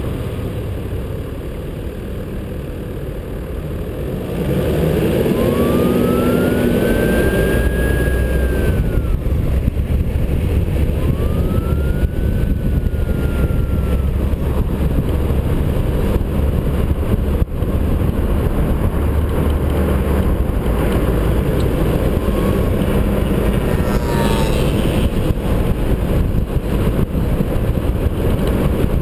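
Engine, tyre and wind noise of a 4WD driving on city streets, picked up by a camera mounted on the outside of the vehicle; it gets louder about four seconds in. Two brief whines rise and fall in pitch partway through.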